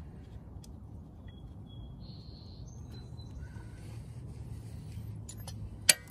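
Quiet outdoor background with a low steady hum and a few faint high tones, then one sharp metallic clink near the end as a combination wrench is brought to the oil drain bolt.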